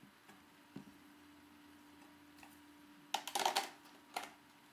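Hard plastic toy parts clicking and clattering as the toy is handled: a few light clicks, then a quick cluster of clacks about three seconds in and one more a second later as it is picked up. A faint steady hum lies under it.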